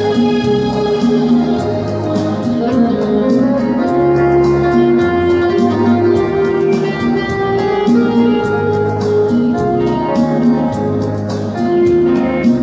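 Electronic keyboard music: a sustained melody over a repeating bass line and a steady, even drum-machine beat, with no singing.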